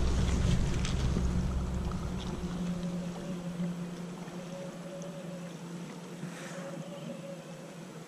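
Wind rumbling on the microphone over the steady rush of a flowing river. The wind rumble drops away about two and a half seconds in, leaving the even sound of the water.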